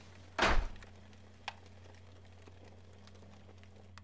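Quiet horror-film soundtrack: a low steady hum, broken by one short, sharp noise about half a second in and a faint click about a second later.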